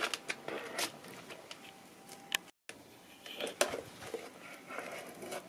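Plastic spatula scraping and clicking in a plastic bucket as the last of the resin mortar is scooped out: a scatter of small scrapes and clicks with one sharper click partway through.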